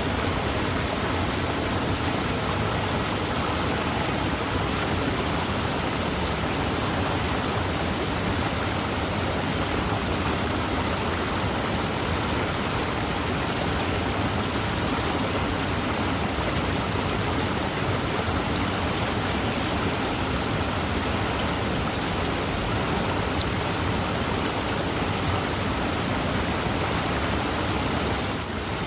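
Fast-moving river water rushing, a steady, even wash of noise.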